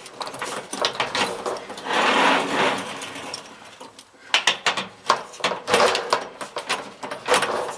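Metal clinking and rattling of sliding barn door trolleys being fitted into the end of an overhead steel track and rolled along it, with repeated sharp clicks and two longer rolling, scraping stretches.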